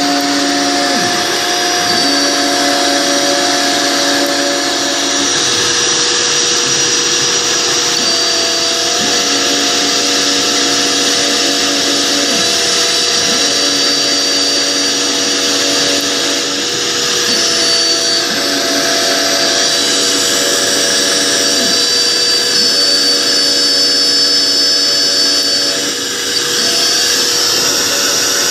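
CNC router spindle milling, with a vacuum cleaner running steadily for dust extraction. The spindle's cutting tone drops out and comes back every few seconds over the vacuum's constant rush.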